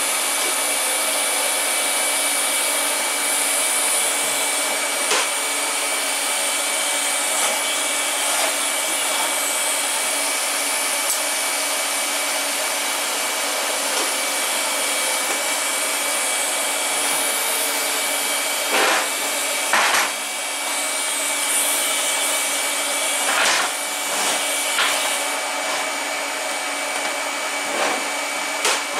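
TIG welding stainless steel, under a steady blower hiss with a constant high whine. A few short knocks and clicks come in the second half: two close together about two-thirds through and more near the end.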